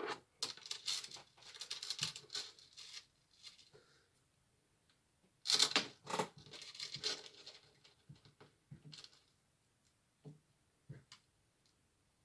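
Close handling of a metal link bracelet and its packaging: two stretches of rustling and tearing, then a few scattered light clicks as the bracelet is worked onto the wrist.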